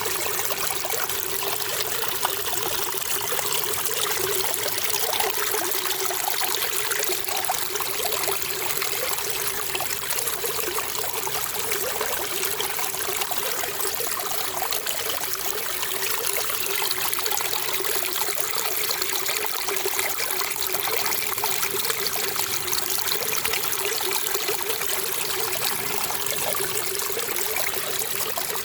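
Running water trickling and splashing steadily, like a small stream or fountain.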